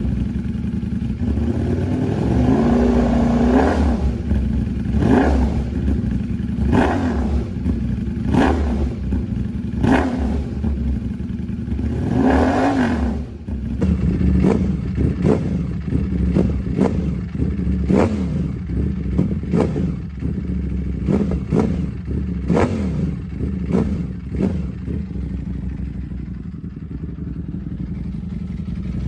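Ducati Panigale V4 V4 engine through an aftermarket exhaust, revved in quick throttle blips every second or two over a steady idle, then settling to a steady idle near the end.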